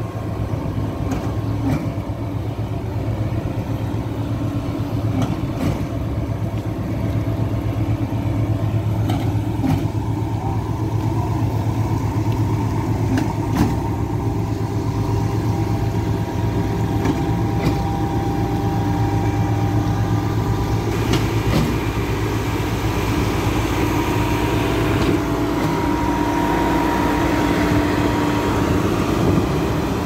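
Diesel engines of a truck-mounted concrete pump and a self-loading concrete mixer running steadily as concrete is fed into the pump, with a pair of short knocks about every four seconds, typical of the pump switching its valve at each stroke. A higher steady note joins in past the middle.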